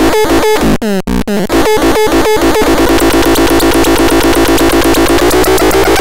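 PHARATRON, a handmade patch-cable synthesizer, sounding rhythmic pulses of falling-pitch chirps about five a second, which break up briefly about a second in. Its knobs are turned, and a couple of seconds in it changes to a faster, denser buzzing pulse with a steady drone.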